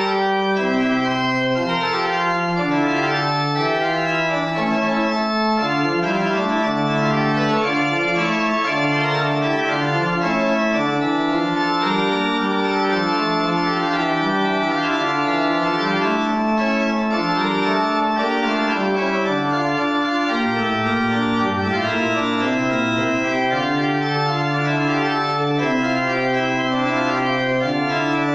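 Church pipe organ playing a slow piece in held chords over a moving bass line, without a break.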